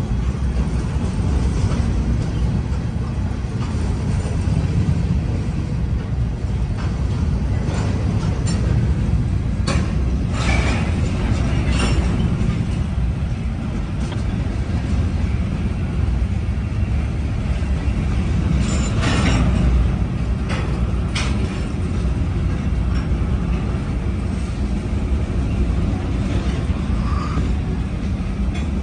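Freight train of loaded covered hopper cars rolling past: a steady low rumble of steel wheels on rail, with a few sharp clanks about a third of the way in and again about two-thirds through.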